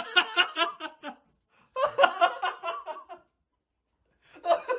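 Human voices talking and laughing, with the words unclear, broken by about a second of dead silence roughly three seconds in.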